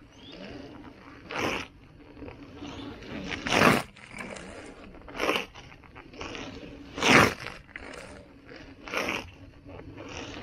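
An electric unicycle's brand-new tyre crunching and scraping on wet asphalt as the wheel rides and turns back and forth, giving five short swishes about every two seconds. The crunch is the sign of the fresh tyre biting into the ground.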